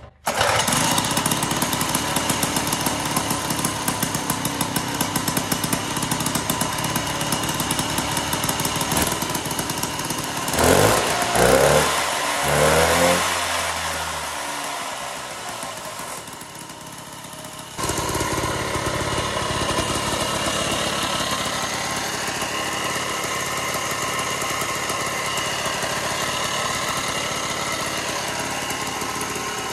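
Rebuilt Toro snowblower two-stroke engine on a homemade minibike, running fresh after a top-to-bottom rebuild. It is revved up and down a few times about ten seconds in, drops to a quieter idle, then runs steadily and loudly again from about eighteen seconds.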